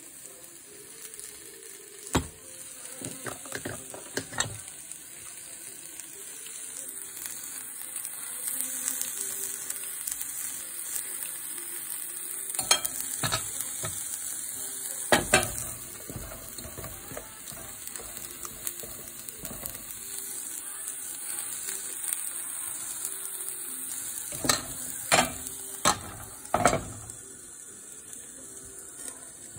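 Kimchi pancake batter sizzling steadily in a frying pan, with a metal spatula clacking and scraping against the pan in three short clusters of strokes.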